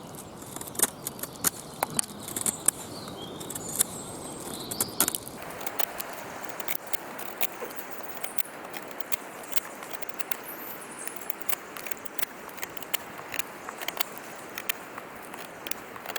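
Victorinox Soldier pocketknife's wavy-edged blade working a piece of wood: an irregular run of sharp clicks and scrapes as the edge bites into and tears at the wood fibres.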